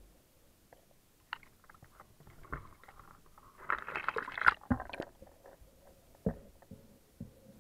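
Handling noise from an underwater camera as it is lifted out of the water and lowered back in: scattered clicks and bumps, then a louder stretch of splashing and crackling in the middle, and a few dull knocks near the end.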